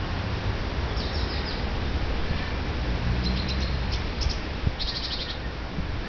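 Small songbirds giving quick series of high chirps in four short bursts, over a steady low rumble.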